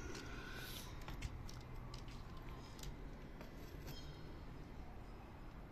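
Faint scattered clicks and light metallic taps of a copper refrigerant pipe coil and a hand tool being handled, over a low steady rumble.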